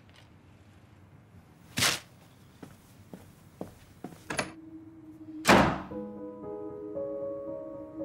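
Sharp thunks in a quiet room, three of them with the loudest about five and a half seconds in. Background music of long held notes begins just after it.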